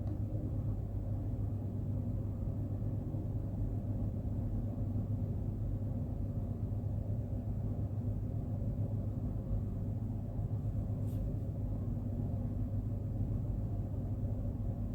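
Steady low rumble of a gas stove burner on a medium flame while nuts and seeds fry in a pan.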